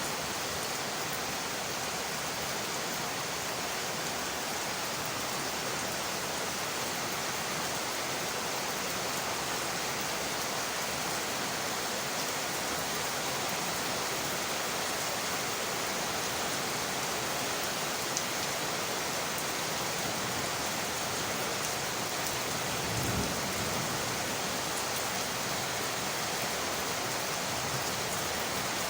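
Steady rain falling on windowpanes, an even hiss, with a brief low rumble about two-thirds of the way through.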